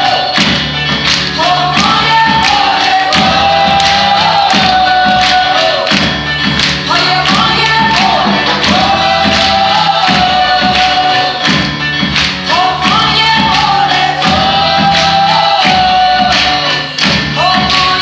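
Live band music: several women's voices sing a melody in repeating phrases of rising, long-held notes over a steady drum beat and a low bass line.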